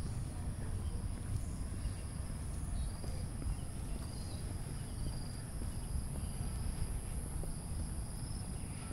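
Steady high-pitched drone of insects, crickets by the sound of it, shrilling without a break, with a few short, fainter chirps about a third of the way through. Under it runs a steady low rumble on the microphone.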